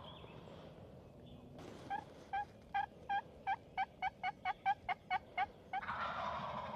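Wild turkeys: a run of about fifteen short yelps that speed up, followed near the end by a gobble of about a second.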